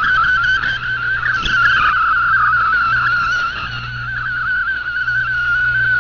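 Shortwave radio receiving a digital-mode MFSK data signal: a narrow cluster of fast-hopping, warbling tones over a steady low hum and band noise.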